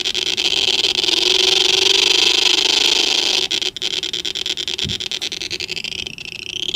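Circuit-bent ray gun toy sound circuit playing through a small 20-ohm speaker: a rapidly pulsing, smooth electronic space-gun tone whose pitch drifts as the pitch knob and body contacts are worked. It cuts out briefly about three and a half seconds in, and near the end the pitch sweeps.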